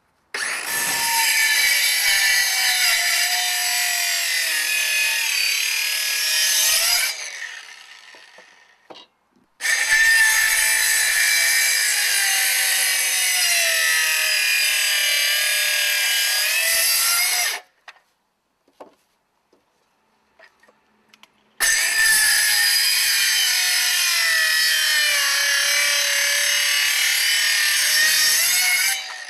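DeWalt circular saw cutting through a pressure-treated 4x4 post in three runs of about seven to eight seconds each, its whine wavering in pitch as the blade works through the wood. The first run winds down over a couple of seconds; the second stops abruptly.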